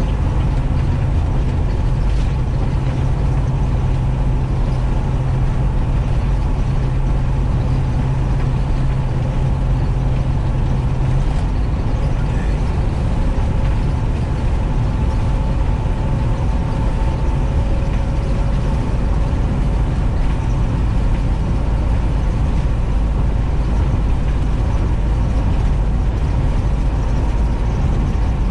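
A short bus's engine and road noise heard from inside the cabin while cruising on the highway: a steady drone and rumble, with a low hum that drops out about eleven seconds in.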